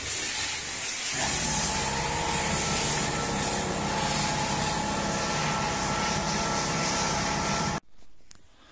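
A steady mechanical hum from a running motor or engine over a constant hiss. The hum comes in about a second in and the sound cuts off abruptly near the end.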